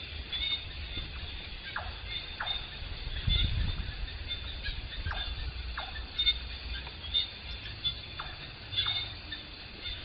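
Forest insects chirring steadily at a high pitch, with a bird's short falling calls in pairs, three pairs in all. There is a low rumble about three seconds in.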